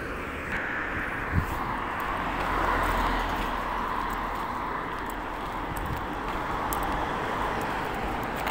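Steady running noise of a passing vehicle, swelling about two to three seconds in, with a single low thump about a second and a half in.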